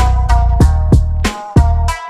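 Background music with a steady drum beat, deep bass and held notes.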